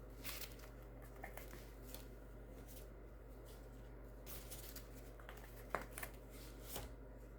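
Faint handling noises of cups and bottles of paint being picked up and set down: scattered light clicks and rustles, the sharpest click a little before six seconds in, over a steady low hum.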